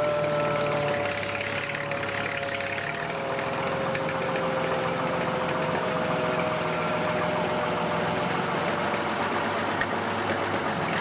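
Heavy truck engine running at low speed as the convoy moves, with a higher whine that slowly falls in pitch.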